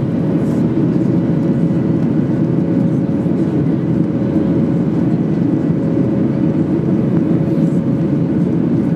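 Steady cabin noise of a Boeing 737-800 climbing after takeoff: its CFM56-7B jet engines and the airflow over the fuselage give an even, deep noise with a faint steady tone on top.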